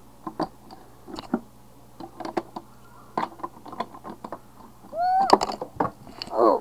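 Scattered light clicks and knocks of handling, then about five seconds in a child's high voice cries out with a rising pitch, and again near the end.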